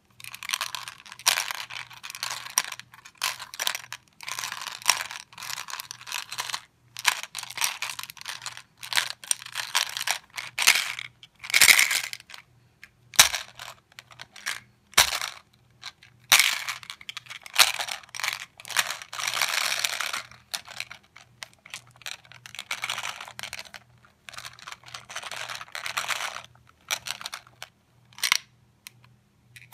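Plastic toy shark and M&M candies being handled on a carpet: an irregular run of short scratchy rustles and clicking clatters as the hard candies knock against each other and the plastic, with a few sharper clicks.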